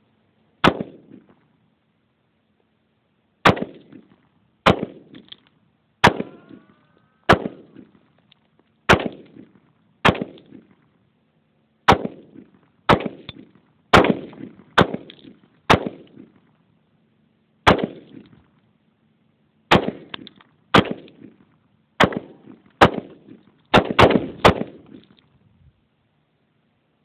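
Bushmaster AR-15 semi-automatic rifle firing about twenty single shots, one to two seconds apart and quicker near the end. Each shot is a sharp crack with a short echo.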